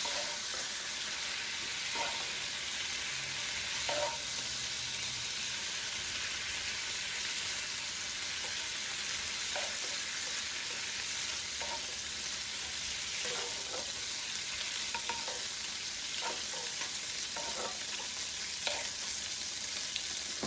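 Shrimp frying in hot vegetable oil in a pot, a steady sizzle, with a short clink or scrape of a utensil now and then as the shrimp are lifted out.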